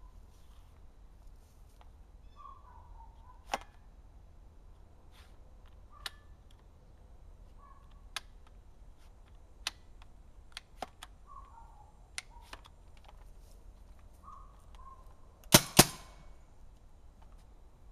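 Two quick shots from a Tippmann U.S. Army Alpha Black paintball marker running on CO2, about a quarter second apart, a couple of seconds before the end. Before them come scattered light clicks, and a bird gives short falling two-note calls now and then.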